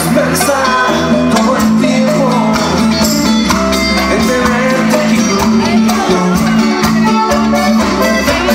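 A live band playing Latin pop through a concert sound system, with button accordion, guitars and drums over a steady beat.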